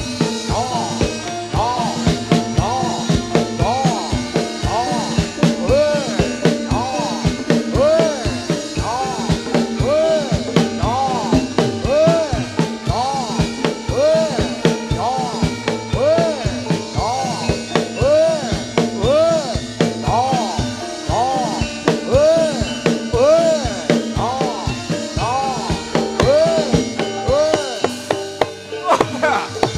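Javanese gamelan music for a jathilan horse dance: dense drumming under sustained tones, with a gliding tone that rises and falls about one and a half times a second.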